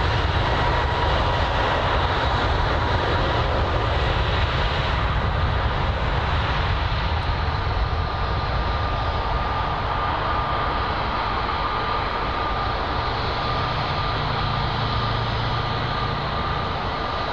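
Twin jet engines of an airliner spooling up for the take-off roll: a steady rumble with a thin whine that climbs a little in pitch about two-thirds of the way through as the engines come up to take-off power.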